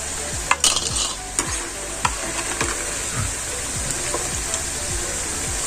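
Batter-coated lotus stem strips deep-frying in hot oil, with a steady sizzle. A few short clicks and scrapes of the strainer against the pan come over it as the fried strips are lifted out.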